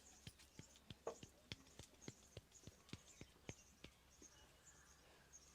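Faint quick taps of hands on a head during an Indian head massage, about three or four a second, thinning out about four seconds in.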